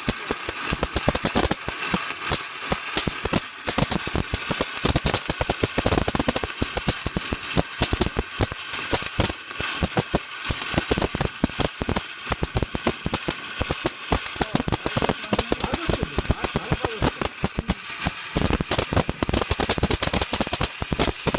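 Fireworks going off in a rapid, continuous barrage of sharp bangs and crackles, like a long string of firecrackers.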